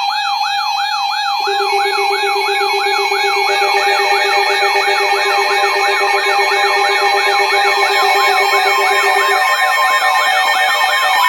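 Loud electronic emergency-alert siren tones: a sweep rising and falling about three times a second, layered over several steady tones. A lower steady tone comes in about a second and a half in and drops out near the end, and more tones join partway through.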